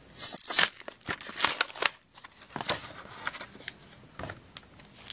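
Stiff clear plastic blister packaging crinkling and crackling as it is worked open by hand. There are two louder rasping bursts in the first second and a half, then scattered small clicks and crackles.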